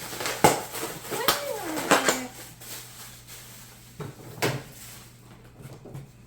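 Several sharp clatters and knocks of a box and its small plastic drip-irrigation fittings being handled. A brief gliding vocal sound comes about a second and a half in.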